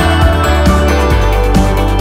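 Loud instrumental background music with a strong steady bass and many held tones.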